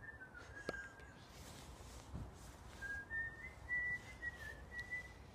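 A person whistling a few soft notes: a short phrase at the start, then a longer run of held notes stepping slightly up and down from about three seconds in. A single sharp click sounds under the first phrase.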